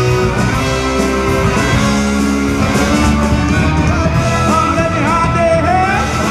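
Mod-revival rock band playing live, loud and steady, with a male lead vocal coming in about four seconds in.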